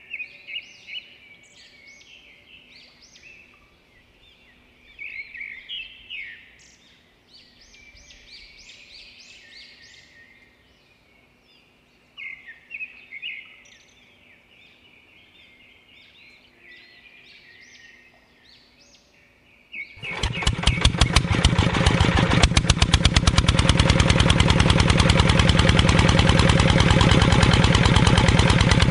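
Birds chirping and calling for about twenty seconds. Then a miniature engine starts and runs steadily with a fast, even pulsing beat, driving a homemade mini axial-flow pump made of PVC pipe.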